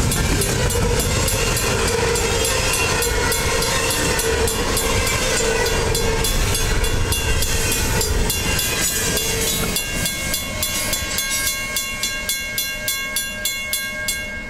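Double-stack intermodal well cars rolling past a grade crossing, a steady heavy rumble and rattle of wheels on rail, with the crossing bell striking repeatedly. About ten seconds in the rumble fades as the last cars go by, leaving the crossing bell ringing clearly.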